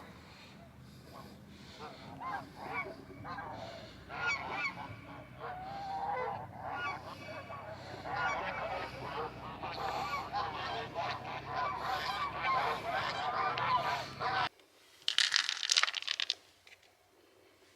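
A dense chorus of many animals calling at once, with overlapping honking calls that grow thicker and then cut off abruptly about two-thirds of the way through. A short, loud crackling rustle follows near the end.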